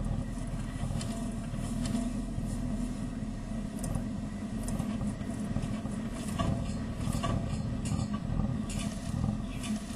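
Steady low outdoor background rumble, with a few faint, brief high-pitched sounds scattered through it.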